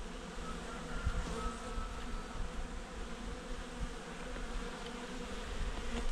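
Honeybees buzzing steadily, the massed hum of a colony in an opened hive.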